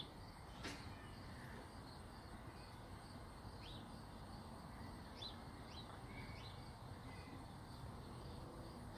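Faint bird chirps: a handful of short, high calls scattered over several seconds, over a low outdoor background hiss.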